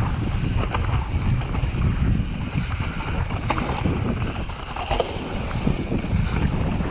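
Cube Stereo full-suspension mountain bike descending a dirt trail at speed: wind rushing over the camera microphone and the tyres rumbling over dirt and roots, with frequent short clicks and rattles from the bike.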